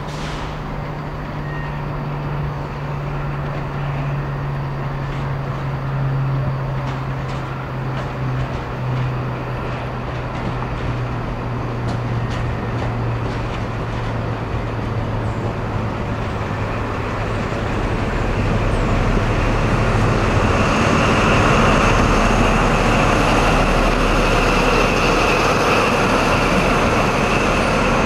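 Class 43 HST power car's diesel engine running as the train arrives slowly, its low hum easing down in pitch. About twenty seconds in, the sound grows louder with rolling noise and a steady high squeal as the power car draws close alongside.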